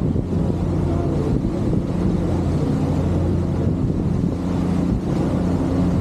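Passenger ferry's engines droning steadily on board, a low hum, with wind on the microphone.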